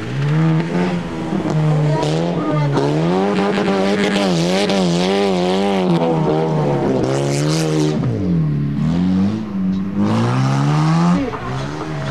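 Off-road race vehicle's engine revving hard, its pitch rising and falling quickly again and again as the throttle works over rough ground, with bursts of hiss about two seconds and seven seconds in.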